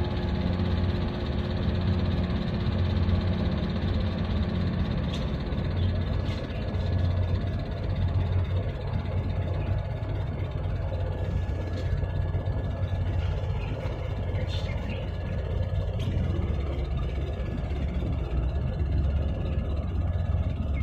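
Steady low engine rumble over a continuous wash of wind and water noise, with a few faint clicks.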